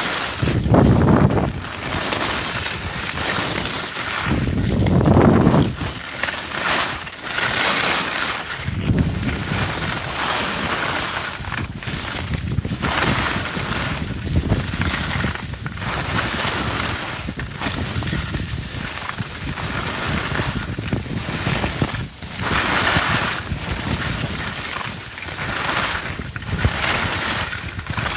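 Wind buffeting the microphone over the hiss of skis carving and scraping on packed snow during a fast downhill run. The noise swells and fades every second or two with the turns, with heavy low wind rumbles about a second in and again around five seconds.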